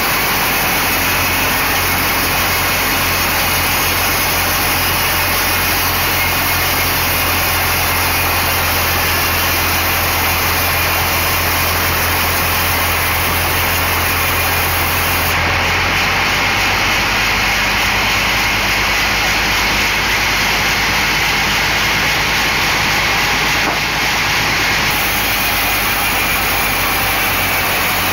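Large sawmill band saw running steadily. Its low hum drops away about halfway through.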